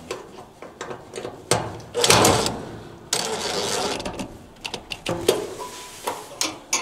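Handling noises as a dryer idler pulley and its spring are fitted into place: scattered clicks and metal knocks, with a louder rush of noise about two seconds in and a steadier noise for about a second after three seconds.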